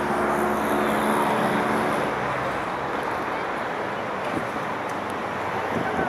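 Steady street traffic noise. A passing vehicle's engine hum stands out for about the first two seconds, then fades.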